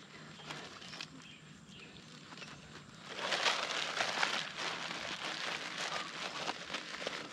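Close rustling and crackling of a person moving among rice plants in a flooded paddy while handling a mesh bag, growing louder from about three seconds in.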